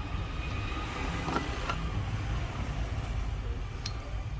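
Steady low background rumble with a faint high whine, and a few light clicks about a second and a half in and near the end.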